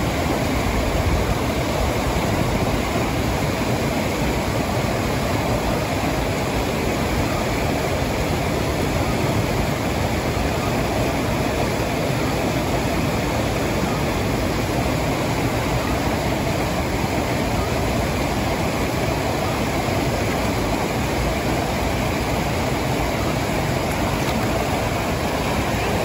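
A waterfall's falling water rushing in a steady, unbroken wash of noise.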